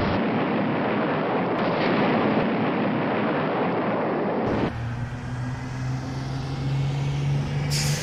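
Vehicle sound effect: a steady rushing engine-and-road noise that switches abruptly about halfway through to a different clip with a steady low engine hum.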